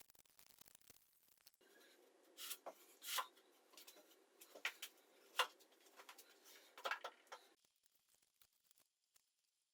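A handful of sharp, separate knocks and taps over a faint hiss, which stops about three-quarters of the way through.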